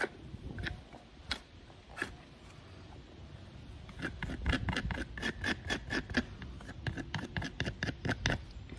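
Hoof knife paring a pony's frog: a few single scrapes at first, then from about four seconds in a quick run of short cutting strokes, about five a second, that stops just before the end.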